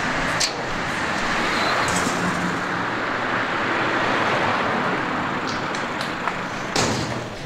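Steady street traffic noise, a wash of passing cars, with a few brief knocks.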